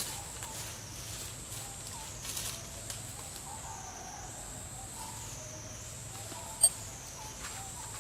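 Outdoor ambience: a steady high-pitched drone that dips slightly in pitch twice, with faint short chirps and one sharp click about six and a half seconds in.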